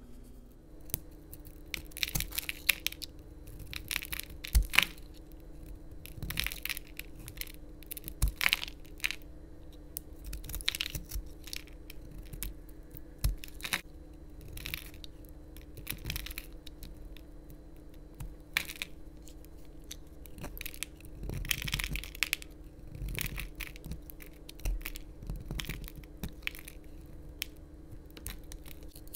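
Craft knife slicing thin curls off a bar of soap in repeated short scraping cuts, irregularly about one every second or two.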